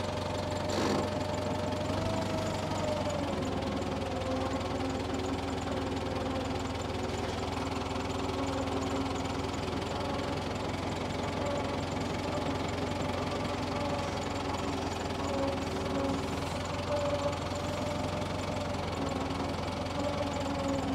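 Tractor engine running steadily, its pitch drifting slightly up and down.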